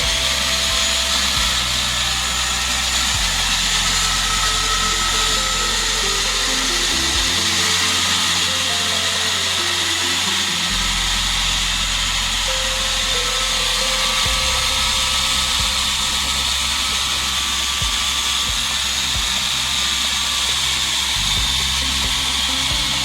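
Electric dough-kneading machine's motor running steadily at speed with a high whirring whine as it kneads the flour, over background music.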